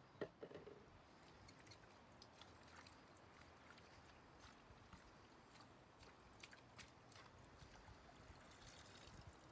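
Faint splashing and sloshing of water as fresh herbs and green onions are swished by hand in a plastic basin, with a small knock just after the start. Near the end, water pours off the herbs as a handful is lifted out.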